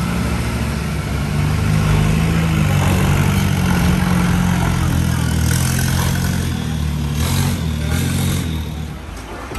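Motorboat engine running steadily at low revs, its pitch wavering slightly, then fading away about nine seconds in.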